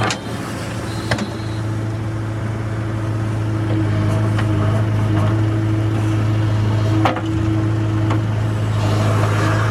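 Heavy diesel engine of the backhoe loader or tractor running steadily with a deep, even hum, with a few sharp knocks at the start, about a second in, and about seven seconds in.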